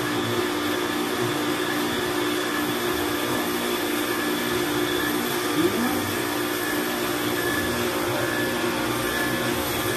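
Pressure washer motor running steadily with a constant whine, while its jet of water sprays and hisses onto a car's soapy bodywork during the rinse.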